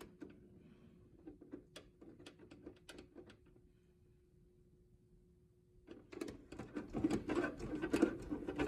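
1956 RCA Victor 8-C-7LE vacuum-tube AM radio tuned between stations: faint static crackles over a low steady tone, with the crackling static growing louder from about six seconds in.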